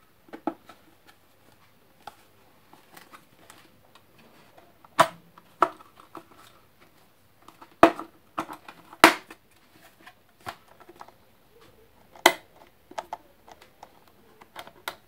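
Sharp plastic clicks and knocks from an electric kettle's plastic housing and switch parts being handled and pressed into place, with light rustling between. The loudest clicks come about five, eight, nine and twelve seconds in.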